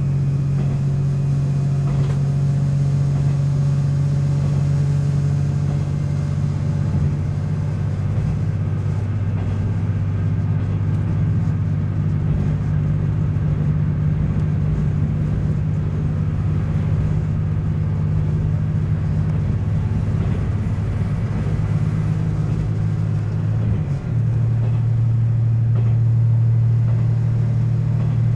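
Tosa Kuroshio Railway 9640-series diesel railcar running on the line, its diesel engine a steady drone over the rail noise. About 24 seconds in, the engine note dips briefly and settles on a different pitch, slightly louder.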